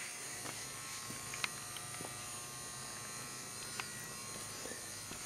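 A faint, steady buzzing hum with a few faint clicks.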